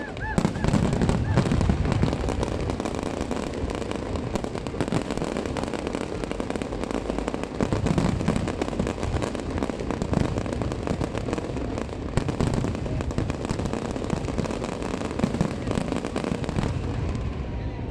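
Fireworks going off in a dense, continuous barrage of rapid crackles and bangs over a low rumble, with brief whistles in the first half-second.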